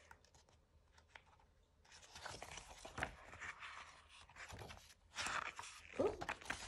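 Paper planner pages being turned and pressed flat by hand, rustling and crinkling, starting about two seconds in and loudest near the end.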